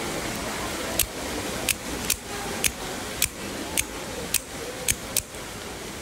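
Microtech Exocet double-action out-the-front knife firing its blade out and back repeatedly: nine sharp snapping clicks, about two a second.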